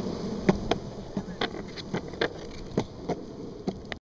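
Longboard wheels rolling over a concrete sidewalk: a steady rolling rumble broken by a run of sharp clacks as the wheels hit the seams between the slabs.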